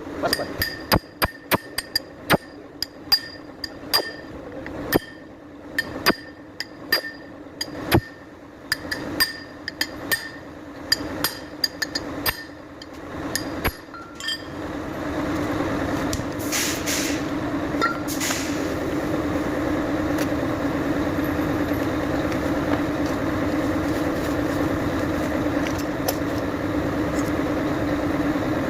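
A hammer strikes metal again and again, sharp ringing blows at about one a second. About halfway through, a vehicle engine starts running steadily and continues to the end.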